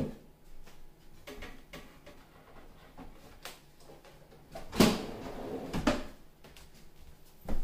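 A few knocks and clunks from a wooden pull-out cabinet shelf running on metal drawer slides, as it is pushed in and pulled back out with a blender on it. The loudest knock comes about five seconds in, with another a second later.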